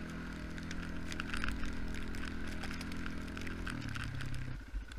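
Quad (ATV) engine running steadily, dropping in pitch about three-quarters of the way through and settling into a slower, pulsing idle near the end.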